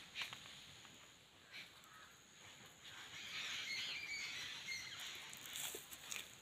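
Birds calling on and off in forest over faint outdoor ambience, with a thin steady high tone underneath and a few short clicks.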